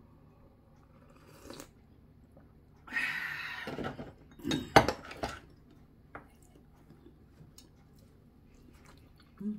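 Serving stew at the table with a ladle, bowl and chopsticks. About three seconds in there is a second of scraping noise, followed by several sharp clinks of crockery and utensils. The loudest clink comes about five seconds in.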